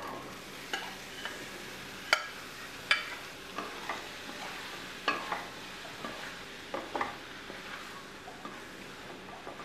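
Boiled chickpeas frying in onion-tomato masala in a stainless steel kadhai, stirred with a wooden slotted spatula. A steady sizzle is broken by irregular clacks and scrapes of the spatula against the pan, roughly one a second.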